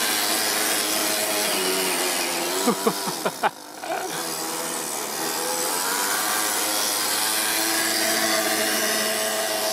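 A Toyan FS-S100 four-stroke single-cylinder overhead-cam model engine runs under throttle in an RC crawler. Its pitch sweeps and drops briefly about three and a half seconds in, then climbs steadily as the engine revs up.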